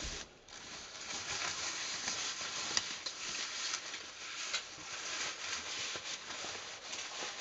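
Crinkling and rustling of the thin white foam wrap as it is pulled off a loudspeaker cabinet, with small clicks and one sharper tick about three seconds in.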